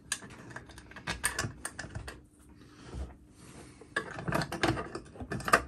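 Small metal screws being handled and set by hand into the bolt holes of a chainsaw's crankcase halves: a run of light clicks and small rattles, with a quieter spell in the middle and busier clicking again near the end.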